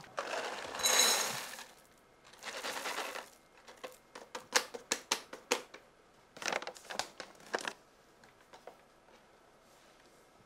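Chocolate pieces poured from a bag into a bowl on a kitchen scale: the packaging rustles, then comes a quick run of small clicks as the pieces drop into the bowl, twice.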